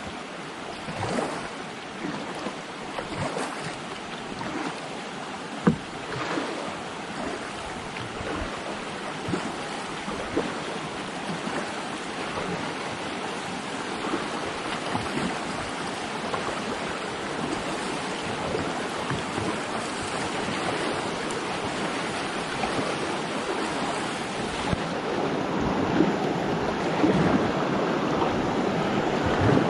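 Fast whitewater river rushing steadily around a kayak, with paddle strokes splashing in the water now and then. A sharp knock stands out about six seconds in, and the rush grows louder near the end.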